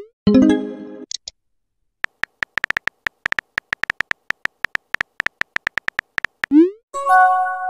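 Texting-app sound effects: a rapid run of short keyboard tap clicks as a message is typed, with a quick rising swoosh followed by a ringing electronic chime as a message goes out, once right at the start and again about a second from the end.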